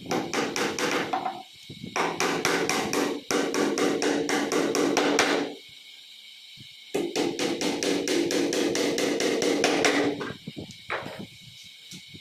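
Hammer tapping a nail into a particle-board table top in three runs of quick, light blows, about four or five a second, with short pauses between the runs.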